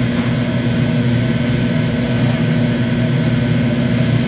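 Steady roar of a glassworking gas burner's flame, with a steady low hum under it, as the bend of a cold cathode glass tube is held in the fire to anneal.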